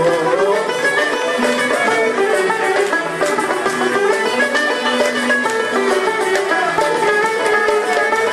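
Small traditional ensemble playing an instrumental passage with no singing: banjo, violin and piano carry the melody over the steady beat of tar frame drum and darbouka.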